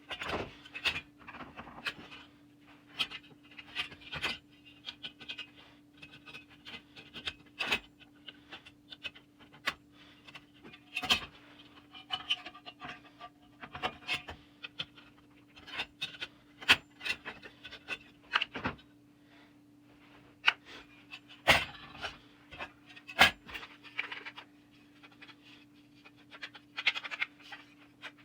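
Hand work on an old metal toy truck: irregular sharp clicks and taps, with short scratchy scraping between them, over a steady faint hum.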